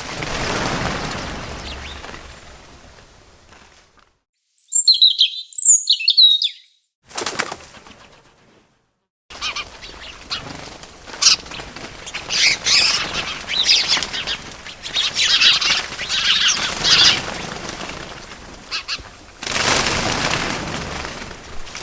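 Small birds chirping in quick falling notes, with fluttering wings and rushes of noise. A few chirps come about five seconds in, and after a short silence a longer busy stretch of chirping and fluttering follows.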